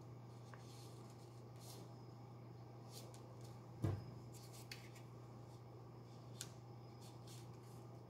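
Faint rustling and clicking of folded paper origami units being handled and pressed into a 3D origami swan, with one louder tap a little before the middle. A low steady hum runs underneath.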